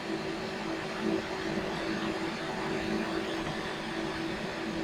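Steady whir of computer cooling fans in a room of running mining rigs, with a constant hum tone beneath it.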